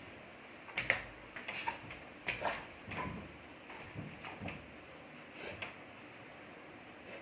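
Rottweiler puppy scrambling about on a bed: a string of short, irregular scuffs and rustles of paws on the bedsheet, the loudest about a second in.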